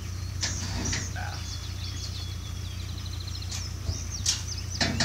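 Wild birds chirping and trilling, with a few sharp knocks; the loudest knock comes near the end.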